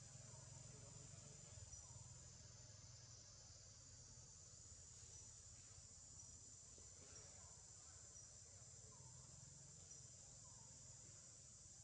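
Faint, steady high-pitched insect chorus, with short faint chirps every second or so.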